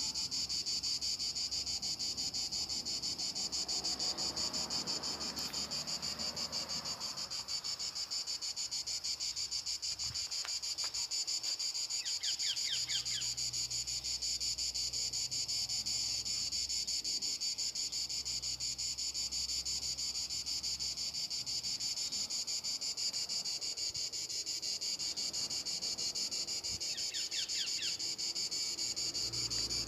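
Steady, high-pitched chorus of chirping insects.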